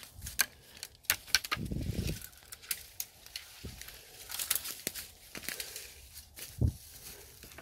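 Footsteps through dry bamboo leaf litter and dead bamboo debris: irregular crunching and sharp snaps of brittle stalks breaking underfoot, with a dull thud near the end.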